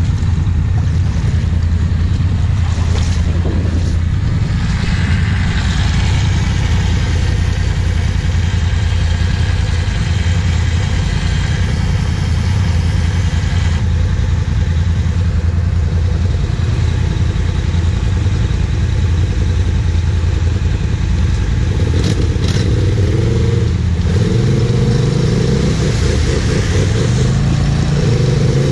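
Quad (ATV) engines idling steadily. About three-quarters of the way through, an engine starts revving up and down.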